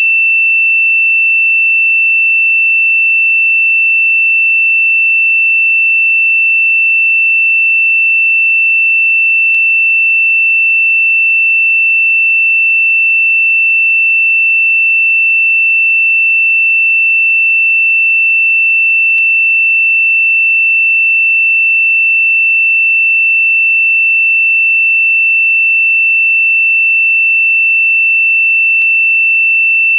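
A single steady, high-pitched pure sine tone from a meditation frequency track, held unchanged with no pulsing or other sound over it.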